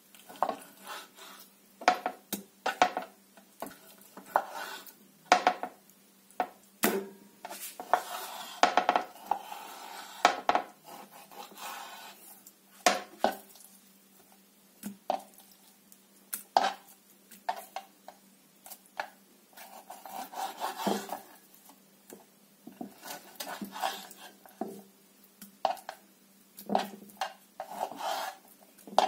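Knife cutting raw chicken breast fillets on a wooden cutting board: irregular sharp taps of the blade against the board, with soft, wet sounds of the raw meat being handled and sliced between them.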